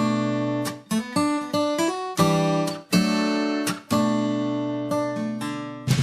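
Acoustic guitar music: strummed chords that ring out and fade, with a quick run of plucked notes about a second in.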